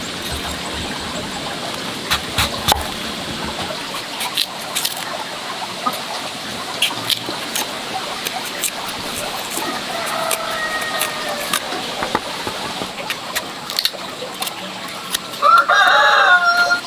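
A knife clicks and taps on a wooden chopping board as firm green fruit is sliced and cored. A rooster crows faintly about ten seconds in, then crows loudly near the end, and that crow is the loudest sound.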